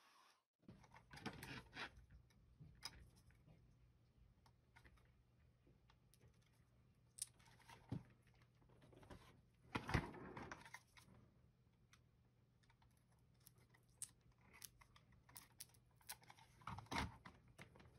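Faint handling noises of a plastic computer mouse and its cable being moved and worked on a silicone mat: scattered small clicks, taps and scrapes as its feet pads are picked at and peeled off, with a louder rustle about ten seconds in.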